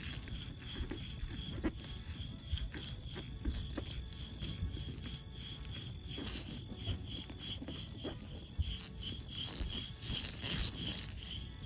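Worn rear wheel hub bearing from a 2007–2009 Honda CR-V being turned by hand. It gives a faint grinding rasp with scattered light clicks, the sign of the failed bearing behind the wind-up noise on the road. A steady high-pitched buzz runs underneath.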